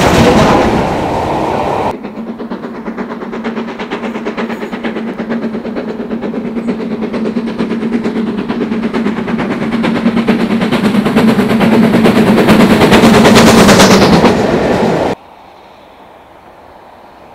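Steam locomotive hauling a train at speed towards the listener, its fast, even exhaust beats over a steady hum growing louder as it nears. The sound cuts off abruptly near the end, leaving a faint even hiss; a different loud passage is cut off about two seconds in.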